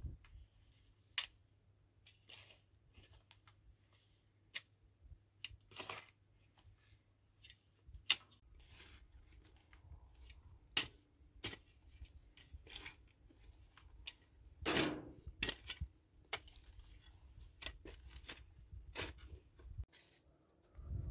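A long-handled shovel digging and turning straw-covered soil: irregular scrapes, cuts and crunches of the blade going into the earth, with a longer, louder scrape about fifteen seconds in.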